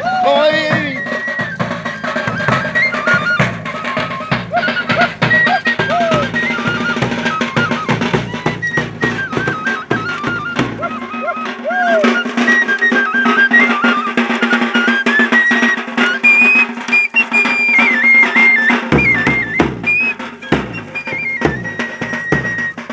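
Traditional folk music: a drum beating a steady rhythm under a high, stepping melody. The drum stops about halfway through, leaving the melody alone, and comes back shortly before the end.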